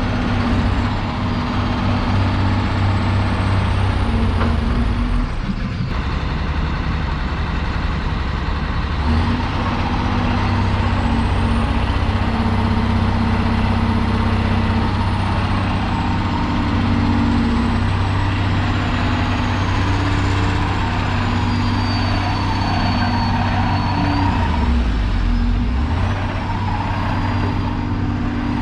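Komatsu PC400LC-7 hydraulic excavator's six-cylinder diesel engine running, its note dipping and recovering briefly a couple of times as load comes on and off. Thin high whines rise and fall above it.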